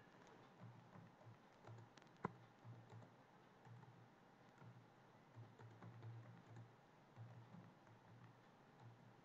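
Faint, slow computer-keyboard typing: scattered soft keystrokes with one sharper click about two seconds in, over a faint low hum.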